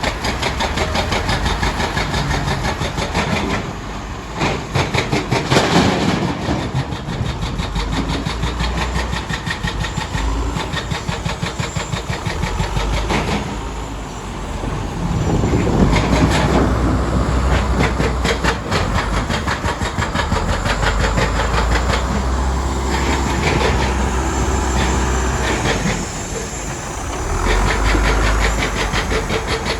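Heavy earthmoving machine's diesel engine working with a rapid, steady clatter over a low rumble, easing and picking up again a few times as the load changes.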